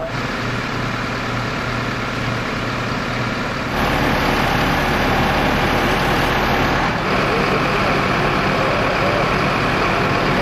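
A vehicle engine idling steadily. About four seconds in it gives way to a louder, noisier run of a recovery truck's engine driving its hydraulic loading crane as it lifts a wrecked car.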